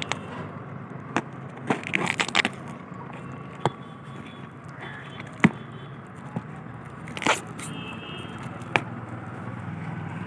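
Parcel packaging being torn open by hand: plastic wrapping and tape crackling and snapping in scattered sharp bursts, a cluster about two seconds in and then single snaps every second or two.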